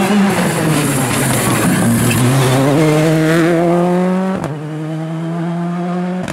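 Rally car engine at high revs, its pitch climbing steadily as it accelerates, then holding a high steady note after a cut about four seconds in.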